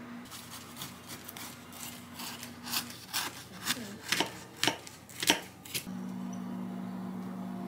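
Knife sawing through the caramelized sugar crust of a pressed, crunchy croissant, a run of sharp crunches and crackles for about five seconds. After about six seconds the crunching stops and a steady low hum carries on.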